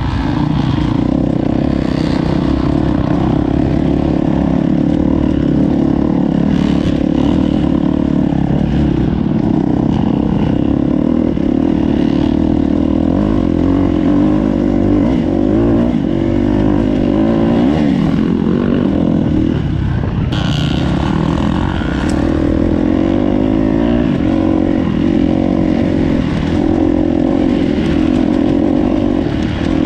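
KTM four-stroke dirt bike engine running under a rider, its pitch rising and falling as it is revved on and off the throttle, with a few sharp knocks about twenty seconds in.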